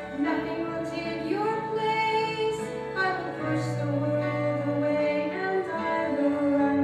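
A woman singing a slow song into a microphone, holding long notes and gliding between them, over low sustained accompaniment.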